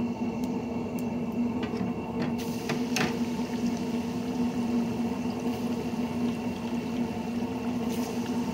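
Breaded catfish fillets going into hot deep-fryer oil: a few metal clicks from the wire basket, then from about two and a half seconds in a steady bubbling sizzle as the fish fries. A steady low hum runs underneath.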